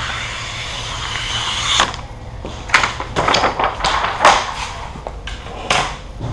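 A sheet of vinyl wrap film being handled on a car hood: a steady hiss for about two seconds, then a run of short rustling, crinkling swishes.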